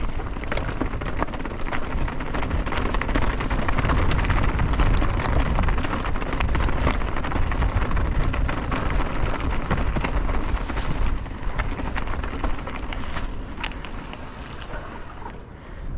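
Mountain bike rolling over a rocky trail: tyres crunching on stones and gravel with many rattling clicks over a steady low rumble. It builds over the first few seconds and eases off in the second half.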